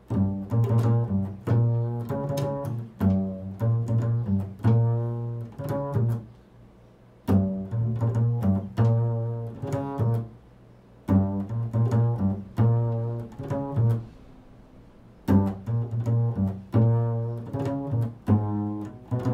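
Double bass played pizzicato: an improvised run of plucked notes built on the interval of a third, each note ringing and decaying. It comes in three phrases, with short pauses about six and a half and fourteen seconds in.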